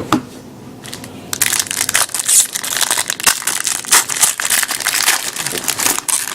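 Trading-card pack wrapper being torn open and crinkled, a dense crackling that starts about a second in.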